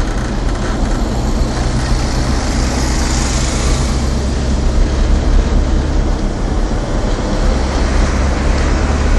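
Vehicle driving, heard from inside the cab with the windows up: a steady engine and road rumble, with a rushing hiss that swells briefly about three seconds in.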